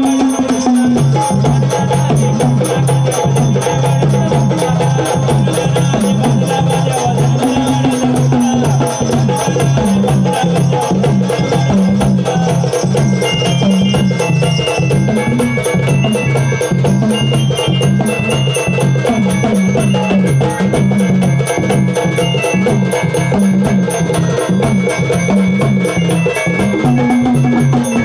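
Gondhal ritual music: fast, steady drumming over a constant low drone, with short high bell-like notes joining about halfway through.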